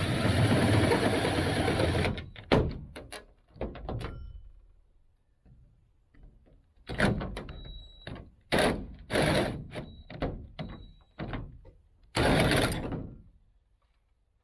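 Power drill cutting a hole through the camper's ribbed metal siding with a hole saw: a steady grinding cut for about two seconds, then a string of knocks and short bursts of drilling, the last about a second long near the end.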